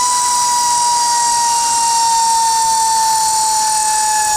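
Power tool motor running flat out: a steady high whine with hiss, its pitch sagging slightly as it takes up load.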